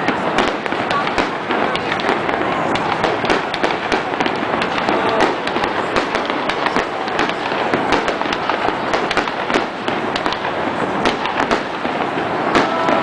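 Fireworks display: a dense, unbroken run of overlapping bangs and crackles, many shots a second.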